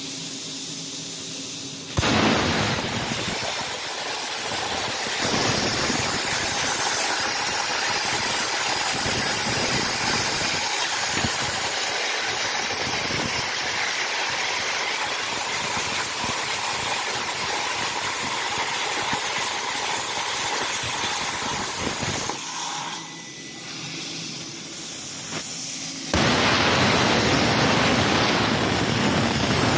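Everlast Power Plasma 82i plasma cutter on a CNC table cutting half-inch steel plate. The arc's loud, steady hiss starts suddenly about two seconds in and cuts off about twenty-two seconds in, leaving a softer air hiss. It strikes up again about four seconds later.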